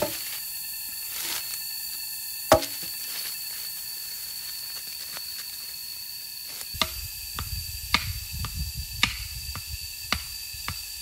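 Freshly cut green logs knocking against each other as they are handled and laid on the forest floor: one sharp knock about two seconds in, then a run of lighter knocks with low rustling from about seven seconds in. A steady high-pitched tone sounds underneath.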